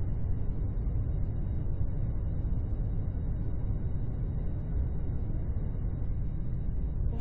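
Steady low rumble of airliner cabin noise, with no change in level.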